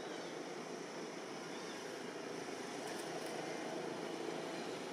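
Steady ambient background noise with no distinct event, and faint short high chirps right at the start and again about a second and a half in.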